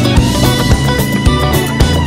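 Background music with a steady beat, about two drum hits a second under sustained notes.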